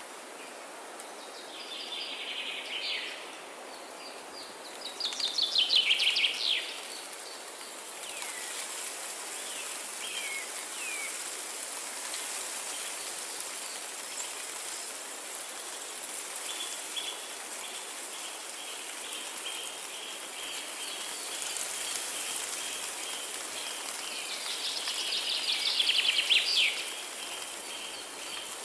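Steady rain with songbirds singing over it: a loud rapid trill about five seconds in and another near the end, with scattered short chirps between. A long run of fast, even, high repeated notes comes in the second half.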